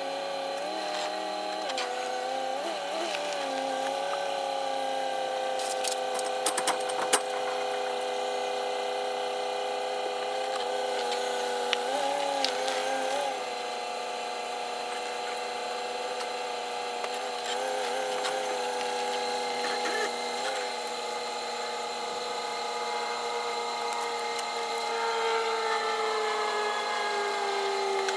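A motor running steadily with a pitched hum. Its pitch wavers briefly twice and sinks slowly near the end. A few sharp clicks come about six to seven seconds in.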